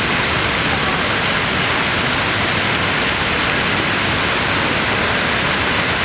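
A row of fountain water jets shooting up and splashing back down into a pool: a steady, loud rush of falling water.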